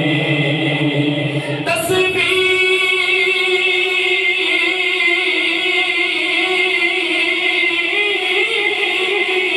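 A man singing devotional verse into an amplified microphone: a low-voiced line at first, then from about two seconds in one long high note held steadily almost to the end.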